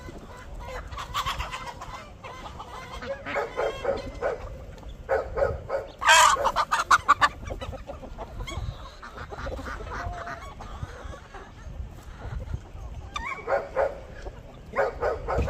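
A large mixed flock of chickens clucking and calling, with one loud rooster crow lasting about a second and a half about six seconds in.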